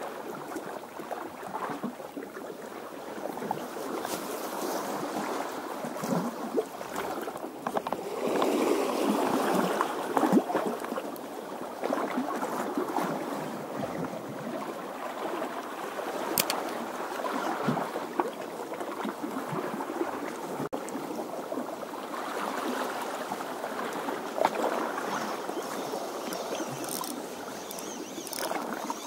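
Small sea waves washing and gurgling against shore rocks, swelling and falling in uneven surges.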